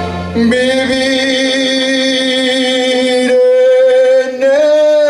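A man singing into a microphone over a backing track, holding one long note for about three seconds, then a shorter note and a rising one near the end.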